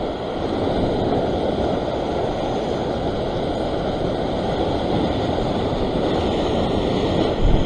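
Ocean surf breaking and washing over a rocky shore ledge: a continuous rush of churning water.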